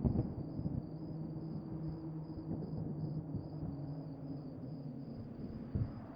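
Dark horror ambience drone: a low rumble with steady humming tones, heaviest at the start and then settling. Under it runs a faint, evenly pulsing high chirp like crickets, and there is a soft thump near the end.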